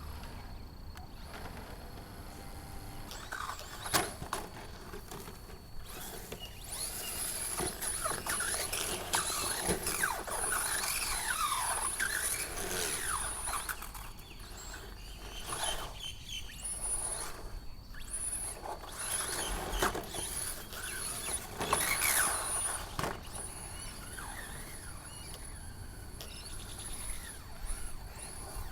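Electric RC truck's brushless motor whining, its pitch sweeping up and down as the truck speeds up and slows. A few sharp knocks come through, one about four seconds in and more around twenty-two seconds in.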